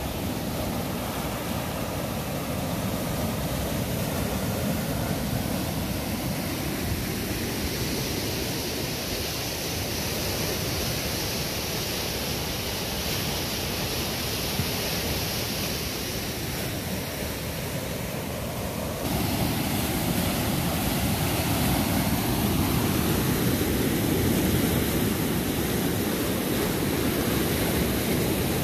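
Rushing water of a swollen, muddy river in flood, a steady noise without pitch. About two-thirds of the way through it suddenly becomes louder and fuller.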